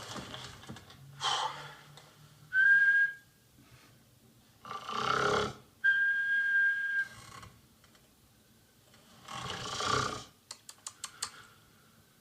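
Elderly woman snoring in cycles: a rough, rasping snore followed by a steady high-pitched whistle. This happens three times, and a quick run of small clicks comes near the end.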